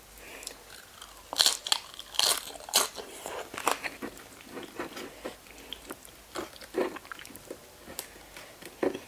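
Close-miked crunchy chewing of a razor clam wrapped in a lettuce leaf: irregular wet crunches, loudest in the first few seconds, then sparser.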